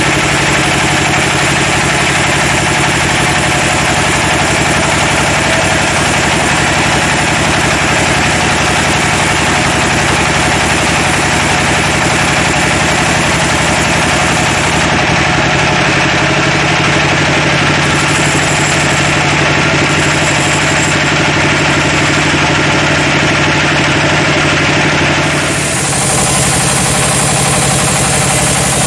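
Log band saw cutting through a teak log: the saw's motor and the blade running steadily through the wood, a loud, continuous machine noise. About three-quarters of the way through it dips briefly and changes in character.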